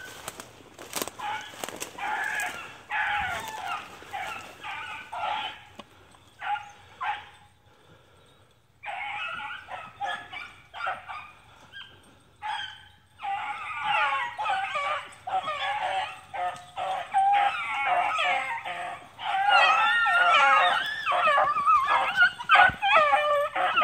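A pack of beagles baying as they run a rabbit's scent trail, the hounds' voices overlapping. The baying comes in broken spells at first, then goes on almost without pause and grows louder over the last ten seconds.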